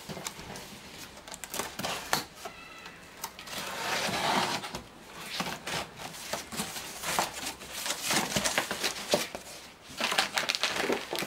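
Cardboard shipping box being opened by hand: packing tape pulled off, then cardboard flaps scraping and rustling, with irregular crackles throughout and a foam packing sheet lifted out near the end.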